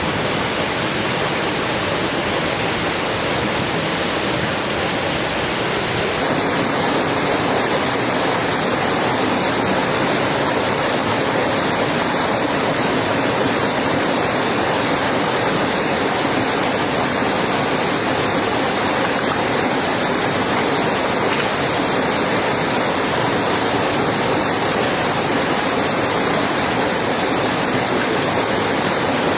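Heavy rain falling steadily, a dense even hiss that grows slightly louder about six seconds in.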